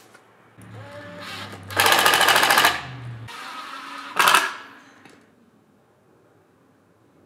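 Cordless power drill run against a wooden plank on a concrete wall, hammering rapidly in two bursts. The first burst comes about two seconds in and lasts about a second. The second is shorter, just after four seconds.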